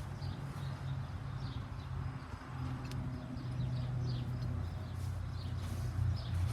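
Small birds chirping in short, quick falling notes, repeated many times, over a steady low hum.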